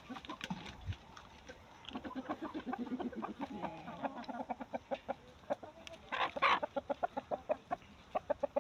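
A flock of chickens clucking: a steady stream of short clucks, with one louder, longer call about six seconds in.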